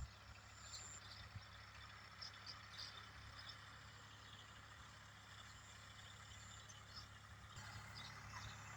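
Near silence: a faint steady low hum under light background noise, with a few faint short high sounds now and then.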